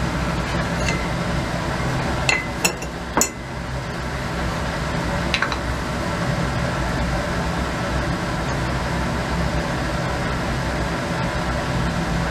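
Laboratory glassware clinking as it is handled: a few sharp glass clinks in the first three and a half seconds and one more about five and a half seconds in, over a steady ventilation hum.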